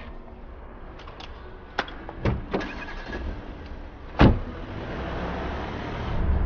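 Small clicks and knocks of someone getting into a taxi, then the car door shutting with a loud thud about four seconds in. After that comes the steady sound of the taxi's engine and tyres as it pulls away, getting louder near the end.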